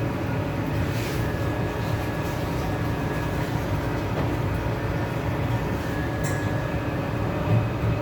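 Turbofan convection oven's fan motor running with a steady rumble, a few faint steady tones over it and a couple of light clicks near the end.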